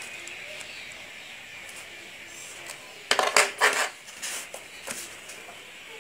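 Geometry drawing instruments being handled and set down on a desk as a plastic ruler is laid on the paper: a quick run of sharp knocks and rattles about three seconds in, then a few lighter taps.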